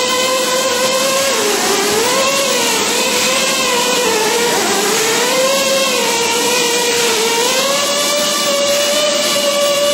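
A motor running steadily, its whine dipping and rising in pitch several times over a constant hiss.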